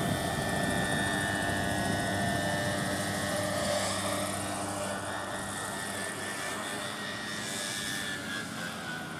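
Large radio-controlled scale Sea King helicopter model flying low, with a steady whine from its drive over the rotor noise. The sound eases off slowly, and the pitch sinks a little near the end as it comes down toward the grass.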